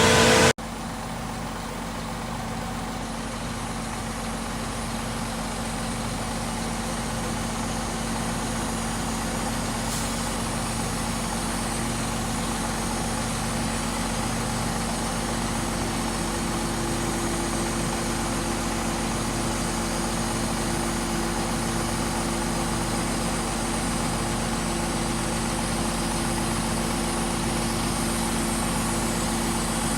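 Diesel engine of a concrete pump running steadily, with a slow, regular pulsing. A louder sound cuts off abruptly in the first second.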